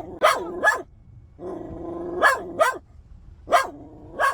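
A dog barking: six short, sharp barks in three pairs, with a brief steadier whine between the first and second pairs.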